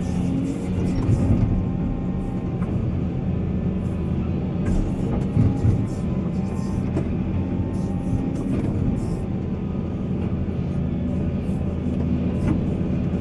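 Diesel engine of heavy mining machinery running steadily under load, with occasional clanks.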